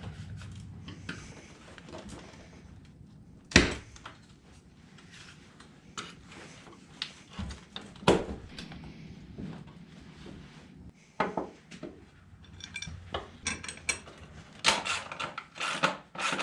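Metal clinks and knocks of a steel mounting bracket, bolts and washers being handled and fitted against a Kubota BX tractor's steel floor pan, with a fast run of ratchet-wrench clicks near the end as a bolt is run down.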